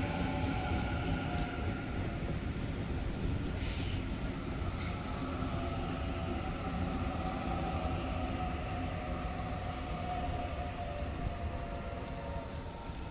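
A Waratah double-deck electric train runs through the station without stopping. It makes a steady rumble of wheels on rail and a motor whine, with a brief high hiss about four seconds in.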